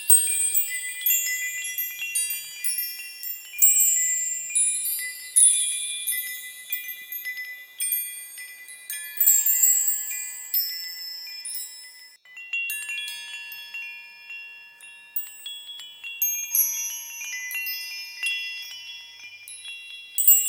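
High-pitched bell chimes tinkling at random. Many clear tones are struck irregularly, overlap and ring on as they fade, with a fresh cluster of strikes every second or so.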